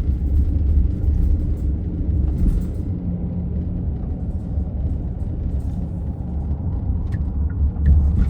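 Road noise heard inside a moving car: a steady low rumble of tyres and engine. Near the end a faint, regular ticking starts, about two a second.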